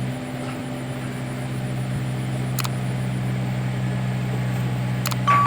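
Diesel engine of a backhoe loader running steadily at a constant speed, with a steady low hum. A sharp high tone comes in just before the end.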